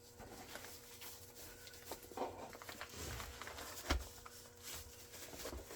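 Quiet handling of a boxed security camera and its packaging: soft rustling and light taps, with one sharper click about four seconds in.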